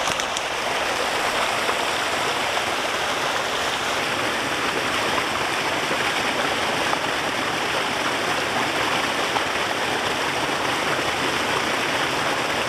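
Fast mountain stream rushing over rocks in a small cascade, a steady loud rush of water.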